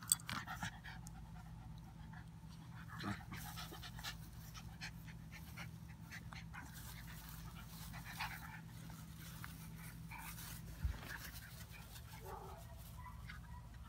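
Two puppies play-wrestling, panting in quick breaths with small scuffles and clicks, over a steady low hum.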